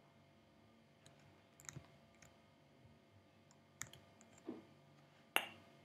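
A few scattered keystrokes on a computer keyboard, each a short sharp click, with the loudest one near the end.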